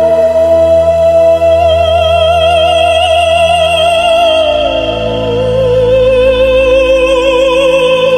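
A voice holding a long, high, opera-like note with widening vibrato, stepping down to a second held note about halfway through, over sustained low backing chords.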